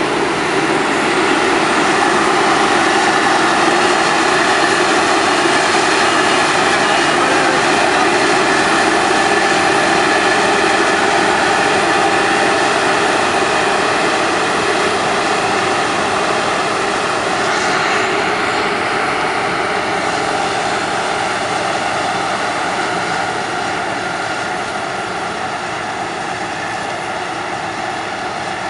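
Claas Lexion combine harvester running steadily under load while threshing, unloading grain through its auger into a trailer driven alongside, with the tractor's engine mixed in. Loud, even machine noise with a steady whine in it.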